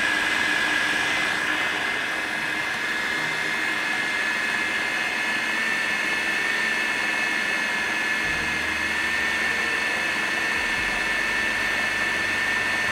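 Electric food processor motor running at speed with a steady high whine, grinding chicken mince with green masala into a fine paste.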